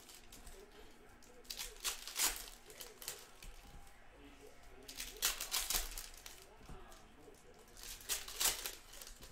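Panini Hoops basketball card pack wrappers crinkling and tearing open, in three short bursts.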